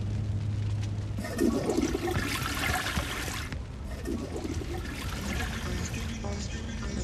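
A toilet flushing: a rush of water that is loudest from about one to three and a half seconds in, then carries on more quietly.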